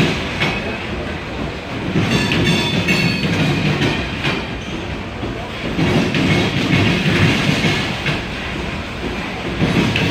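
Railcars rolling slowly past close by, an Amtrak passenger train alongside a CSX coal train: steel wheels clatter over rail joints in swells about every four seconds, with a brief high wheel squeal about two seconds in.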